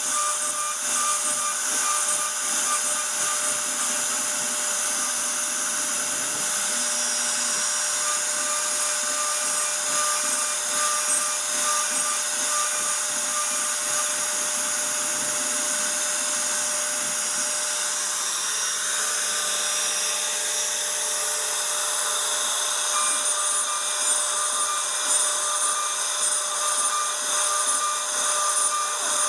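CNC router spindle running at high speed while carving wood: a steady high-pitched whine over a continuous cutting hiss.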